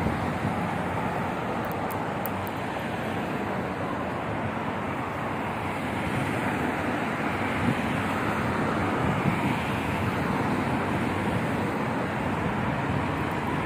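Steady city traffic noise from cars on a wide multi-lane road: an even rushing sound with no distinct engine notes.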